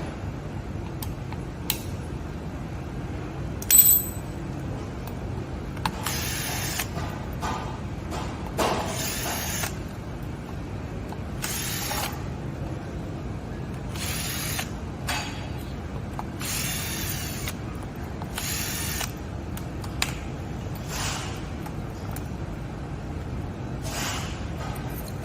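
Hand tools at work on a scooter's rear hub motor: several short bursts of ratcheting mechanical clicking at irregular intervals, over a steady low hum. A sharp metallic click about four seconds in is the loudest sound.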